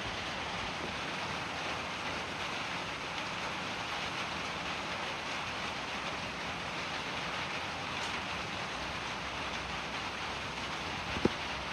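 Steady hiss of air blowing out of a refrigerator's open capillary tube while the system is being emptied before a freon charge. A short sharp click near the end.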